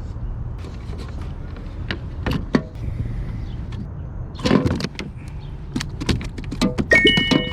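Irregular knocks, clicks and rattles of a kayak angler handling fishing gear while landing a bass aboard, with a louder cluster about halfway through and a brief high beep-like tone near the end.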